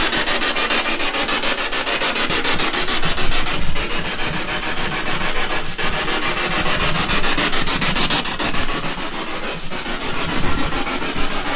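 Spirit box, a radio scanning rapidly through stations: loud, continuous static chopped into fast, even clicks many times a second.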